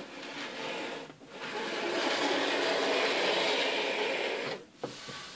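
Plastic hulls of a Playmobil toy boat and banana boat sliding across a tabletop, a steady rough rubbing that briefly stops about a second in, comes back louder and ends shortly before the close.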